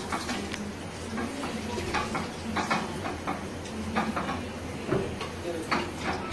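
A knife cutting through a jelly-filled watermelon on a plate: a series of short, irregular cuts and taps as the blade works through the fruit and knocks the plate, over a steady low hum.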